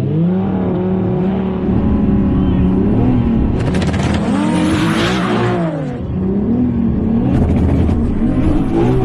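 A car engine revving hard, its pitch climbing and falling over and over as it runs up and eases off, with a loud hissing rush over it in the middle lasting a couple of seconds.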